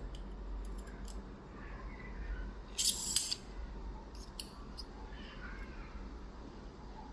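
Small metal lock-tool pieces being handled and fitted: a few light clicks and ticks, with a short scraping rasp about three seconds in.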